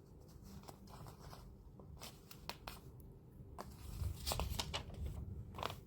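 Light rustling of paper and packaging, with a few scattered clicks, as the instruction booklet is handled.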